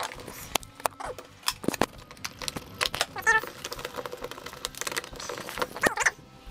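Irregular plastic clicks and knocks as a mains plug is handled and pushed into a plastic socket adapter, with cable rustle.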